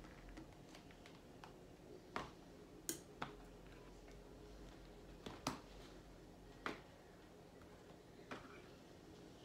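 Quiet room with about six short, sharp clicks and taps spread over several seconds: a utensil knocking against food containers and a plate while jollof rice is dished out.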